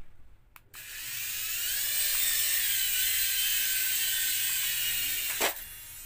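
Toy infrared remote-control helicopter's tiny electric motors spinning its rotors up with a high whine, starting just under a second in, dipping a little in pitch and rising again, then holding steady. A sharp click about five and a half seconds in, after which the whine is much quieter.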